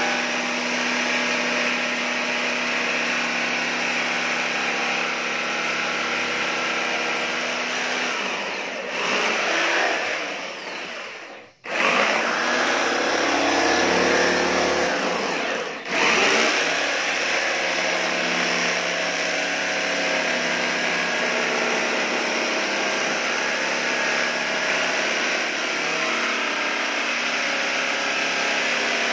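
Corded electric power tool running steadily against a wooden panel, its pitch and load shifting about halfway through, with two brief sharp drops in sound near the middle.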